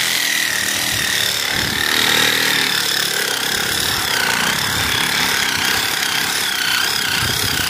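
DeWalt cordless reciprocating saw running with its blade plunged into lawn soil, sawing a narrow trench through the grass roots. A steady motor whine over the noise of the blade, its pitch dipping about four seconds in and wavering after as the blade loads up in the dirt.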